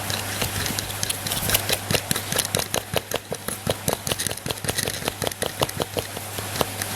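Rapid clicking of a BMX cassette hub's driver ratchet as the driver is turned in the hub, the pawls ticking several times a second and quickening in the middle.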